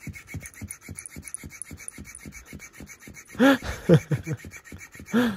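Electric flopping fish cat toy wiggling its tail against the carpet, an even patter of about six pats a second, while a cat wrestles it. Three short cries from the cat come in the second half.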